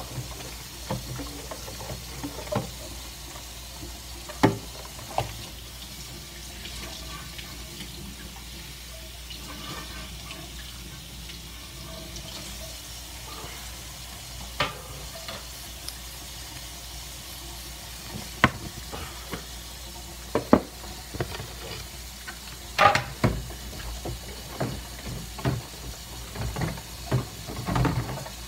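Baby Virginia opossum chewing a piece of fruit close to the microphone: irregular wet chewing clicks, sparse at first and coming more often in the last several seconds.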